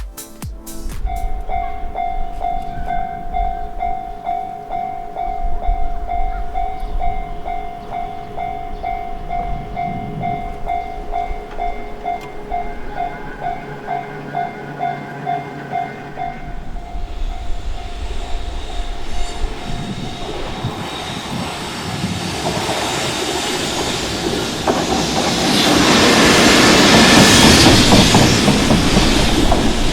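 Japanese railway level-crossing warning bell ringing in a steady repeating ding, about two strikes a second. A train then approaches and passes over the crossing, its wheel and rail noise building to the loudest point near the end.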